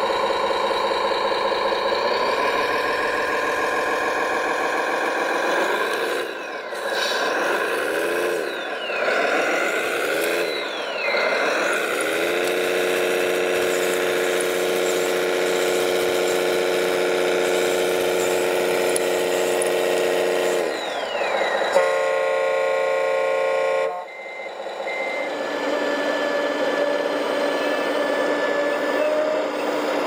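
RC model truck's engine sound, rising in pitch, revving up and down, then holding steady. Near the end the engine stops and a horn sounds for about two seconds, followed by a quieter steady hum.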